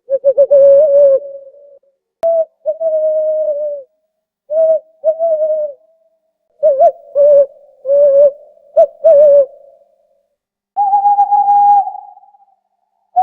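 Owl hooting: a run of about a dozen short low hoots in uneven phrases, some with a quick upward flick at the start, ending in two longer, higher, steady hoots.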